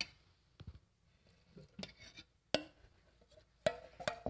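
About half a dozen scattered clinks and knocks of a utensil against dishes and a stainless steel mixing bowl, the louder ones near the end ringing briefly.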